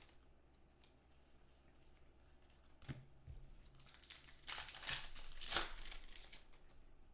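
Foil trading-card pack wrapper being torn open and crinkled by hand. After a quiet stretch with a single click about three seconds in, the rustling tears come in a cluster from about four and a half to six seconds in.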